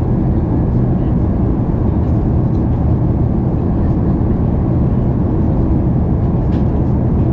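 Steady low rumble of cabin noise inside an Airbus A380 airliner, with a few faint clicks about six and a half seconds in.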